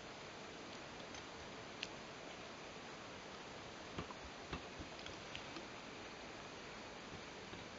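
AQUA refrigerator-freezer making faint, irregular ticks and clicks, a dozen or so at uneven spacing, over a steady low hiss.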